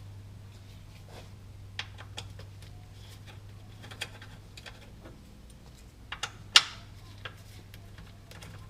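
Plastic undertray of a Subaru WRX being unfastened from below: scattered clicks and taps of tools and plastic clips, with one sharp, louder snap about six and a half seconds in, over a steady low hum.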